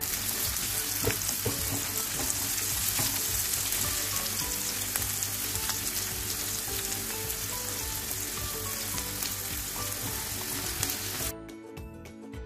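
Sliced onions, green chillies and garlic sizzling in hot oil in a frying pan, with faint background music under the hiss. The sizzle cuts off suddenly about a second before the end, leaving only the music.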